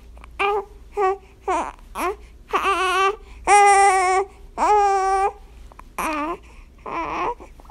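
Baby crying: four short sobbing cries, then three longer held wails of under a second each, then two hoarser, breathier cries near the end.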